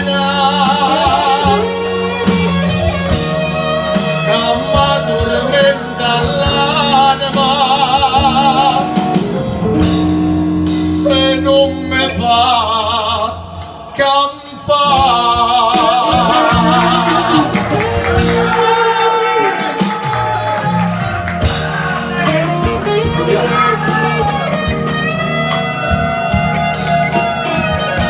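Live performance of a classic Neapolitan song: a man sings the melody with wide vibrato over a small band with guitar.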